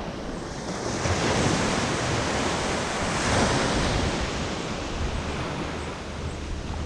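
Small waves breaking on a sandy beach and washing up the shore, swelling about a second in and easing off near the end.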